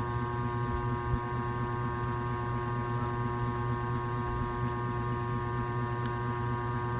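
Steady machine hum: a low drone with several high, steady tones above it. One soft tap about a second in.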